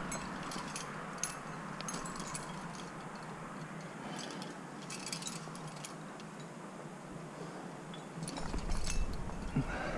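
Metal climbing gear, carabiners and quickdraws, clinking and jingling in scattered light bursts as a sport climb gets under way. A low rumbling noise comes in near the end.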